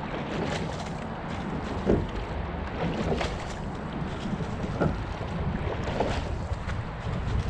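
Rowing single scull under way: wind rumbling on a boat-mounted microphone, with water rushing along the hull and short splashes and clunks of the sculls in the water and oarlocks about every second and a half.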